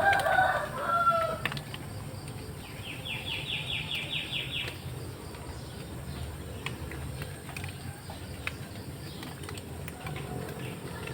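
Birds calling: a loud call in the first second and a half, then a fast trill of about eight notes from a second bird, over a steady low background rush.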